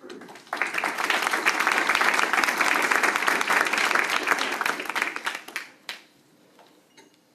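A roomful of people applauding. The applause starts about half a second in and dies away after about five seconds, followed by one last sharp knock.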